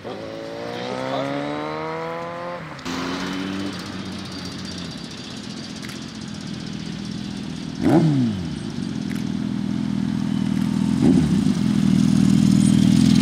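Suzuki Hayabusa inline-four with an M4 slip-on exhaust accelerating, its engine note rising for the first few seconds, then cutting off abruptly. After that a steady engine hum, a vehicle passing close with a falling pitch about eight seconds in, and a smaller pass near eleven seconds, while the Hayabusa's engine grows louder as it rides up close.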